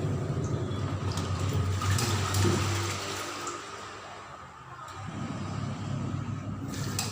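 LG front-loading washing machine taking in water on a test wash after its water-level sensor wiring and hose were repaired: a steady rush of running water over a low hum, easing off about four seconds in and then picking up again.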